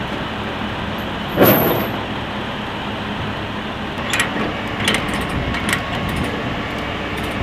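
A vehicle engine running steadily, with a loud knock about a second and a half in, then several sharp metallic clinks of heavy tie-down chains being handled between about four and six seconds in.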